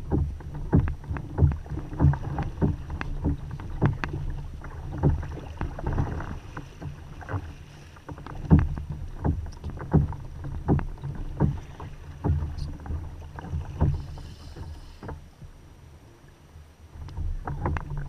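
Water slapping and knocking against a plastic fishing kayak's hull in irregular hits, one to three a second, over a low rumble of wind and sea on the microphone.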